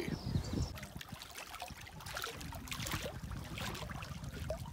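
Faint water sounds: light trickling and lapping with scattered small ticks and drips.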